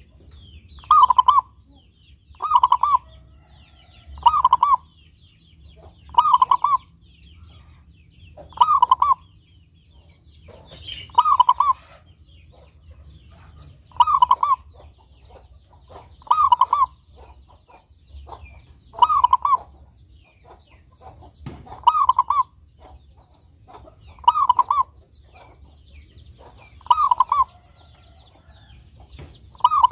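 Perkutut (zebra dove) singing: short, clear cooing phrases repeated about every two and a half seconds.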